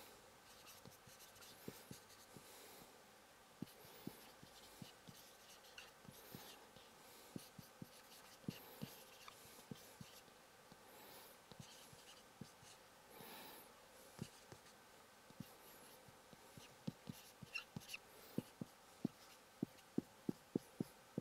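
Marker pen writing on a whiteboard: faint scattered taps and scratchy strokes, coming faster near the end.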